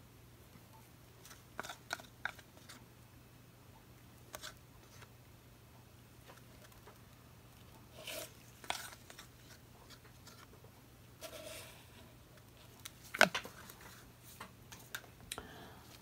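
Scattered small taps, clicks and crinkles of gloved hands handling plastic paint cups and a stir stick, over a low steady hum. The sharpest knock comes about 13 seconds in.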